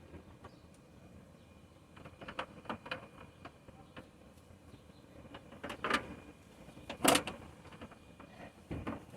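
Scattered knocks and clicks from handling wood and tools while a bed frame is taken apart, with the loudest sharp knock about seven seconds in.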